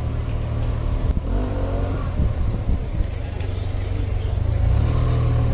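Yamaha maxi-scooter's engine running at low speed as it rides through slow city traffic, mixed with surrounding traffic noise; it gets somewhat louder near the end.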